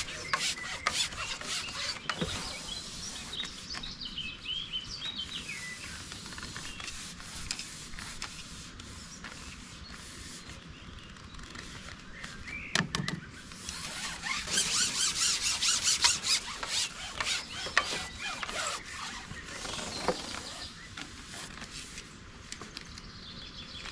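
Carbon fishing pole rubbing and squeaking as it is slid and handled across the angler's lap, with scattered small clicks and a louder stretch of scraping about two thirds of the way through.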